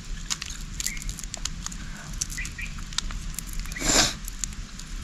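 Small dry crackles of a charred prawn shell being peeled apart by hand. A loud sniff comes about four seconds in, from a man with a head cold.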